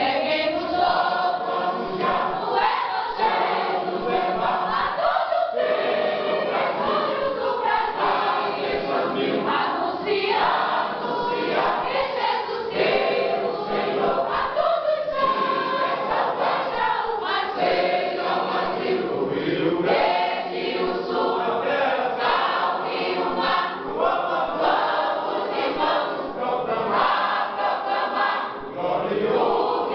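Church choir of mixed voices singing a gospel hymn together, in continuous phrases with short breaks between them.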